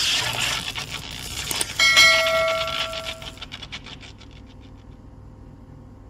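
Intro sound effect: a hissing whoosh, then about two seconds in a single bright bell-like chime that rings and fades away over the next two seconds.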